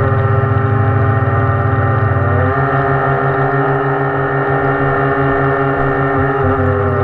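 Radio-controlled electric model boat running across the water: a steady motor drone with a regular low pulsing beat over water rushing past the hull, its pitch shifting slightly about two and a half seconds in and again near the end.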